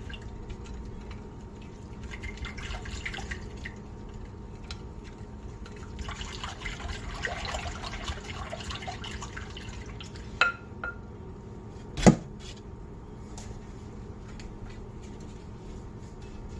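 A wire whisk beats a thin liquid batter of milk, yeast, egg and sesame seeds in a glass bowl, sloshing and clinking in two spells. A couple of sharp knocks follow, the loudest about twelve seconds in.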